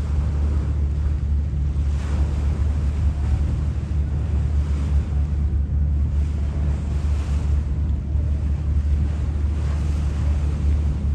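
Wind rushing over the microphone on a moving boat, with a constant low rumble and the wash of water beneath it, surging slightly from moment to moment.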